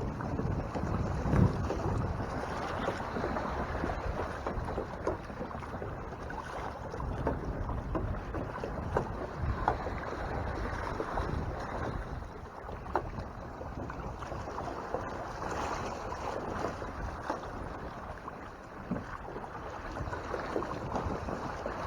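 Water rushing and splashing along the hulls of a Hobie Mirage Tandem Island sailing kayak moving under sail through swells, with wind buffeting the microphone and scattered sharp slaps of water.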